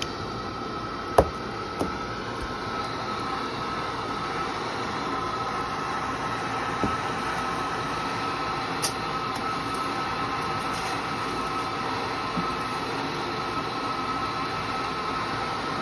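Steady rushing of the gas bending fire used to heat neon glass tubing, with a faint steady tone running through it. A sharp knock comes about a second in and a few fainter taps follow later.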